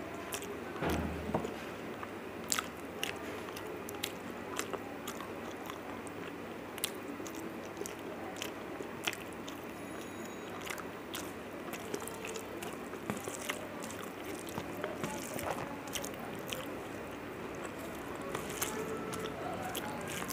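Rice being mixed and squished by hand on a stainless steel plate, with frequent sharp clicks and scrapes of fingers against the metal. A low knock about a second in.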